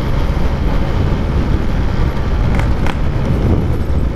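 Yamaha RX-King's two-stroke single-cylinder engine running under way through a Packing Power aftermarket exhaust, with a couple of short clicks near the middle.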